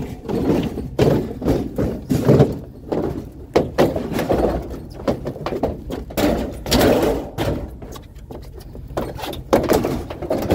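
Repeated thuds, knocks and clanks of scrap appliances being handled and loaded, irregular and close together throughout.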